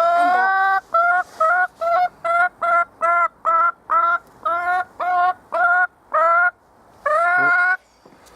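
A chicken calling in a steady run of short pitched clucks, about two a second, opening with a longer call and ending with another longer call near the end.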